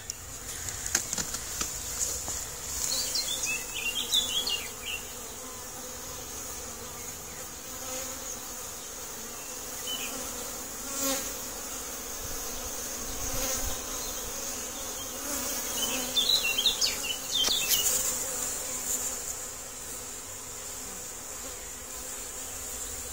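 Buckfast honeybees buzzing around the entrance of a top bar hive: a steady hum of many bees from a newly hived swarm flying in and out. Short chirps come about three seconds in and again around sixteen seconds.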